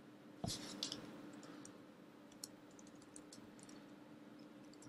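Typing on a computer keyboard: a louder knock and a cluster of key clicks about half a second in, then a run of lighter, uneven keystrokes, over a faint steady hum.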